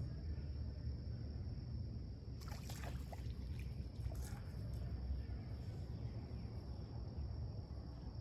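Creek-side outdoor ambience: a steady low rush with a constant high insect drone, and a short cluster of clicks and rustles about two and a half seconds in.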